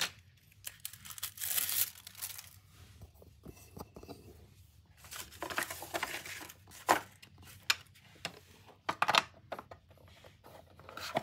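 Plastic wrapping and paper crinkling and rustling as packing material is handled, in irregular spells, with a few sharp clicks and knocks from the plastic carrying case.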